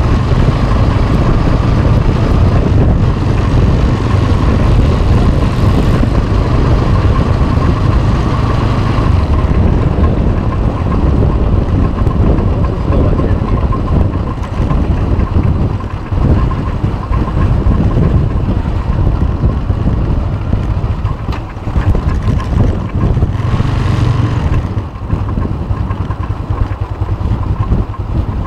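Cruiser motorcycle engine running on the move, mixed with heavy wind noise on the handlebar-mounted phone's microphone.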